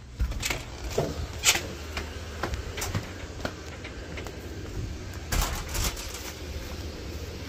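A door being opened, then footsteps and scattered knocks and rustles as things are handled, the loudest knocks about a second and a half in and again just past five seconds. A steady low rumble runs underneath.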